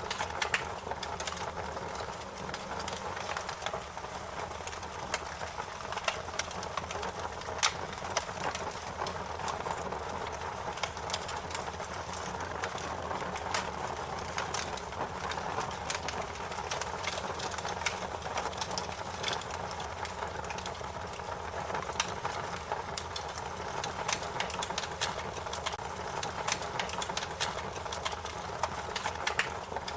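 Fire crackling: a dense, irregular run of sharp pops and snaps over a steady hiss.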